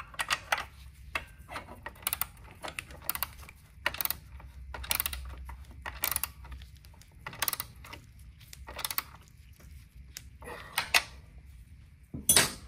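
Ratchet wrench clicking in short spells as its handle is swung back and forth, tightening a motor-mount nut. A louder clatter comes near the end.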